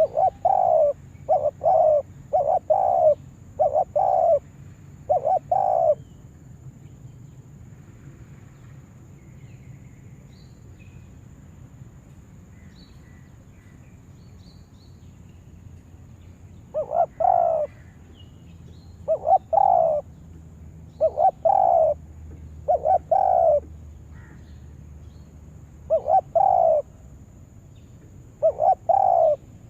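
Spotted dove (tekukur) cooing: a run of short, paired coo notes, each falling slightly in pitch. After a pause of about ten seconds, more coos follow, spaced a second or two apart.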